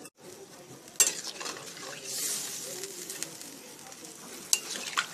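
Spatula stirring fish curry in a kadai, knocking sharply against the pan about a second in and twice near the end, over the sizzle of the cooking gravy.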